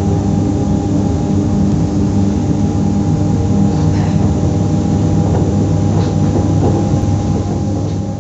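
Z2N double-deck electric multiple unit Z 20835 standing still, its onboard equipment running with a steady hum and several held tones, with a few faint knocks about four and six seconds in.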